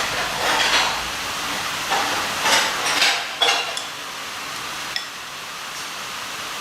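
Dishes and utensils being handled: a few short bursts of clinking and scraping over the first four seconds, then one light click about five seconds in.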